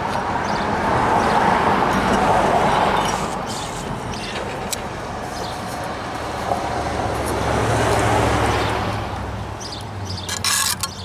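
Road traffic passing: a steady rushing that swells as vehicles go by, twice, the second time with a low engine hum under it. Near the end come a few sharp clicks of a steel trowel and brick knocking.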